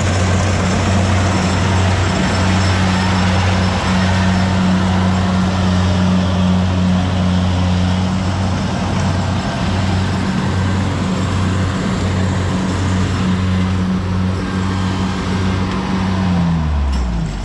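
Rice combine harvester running steadily: a strong low engine hum with a dense rushing noise over it. Near the end the engine's pitch drops.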